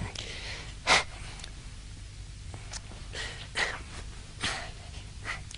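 A man's short breathy vocal noises, gasps and snorts, a handful of separate ones, the loudest about a second in.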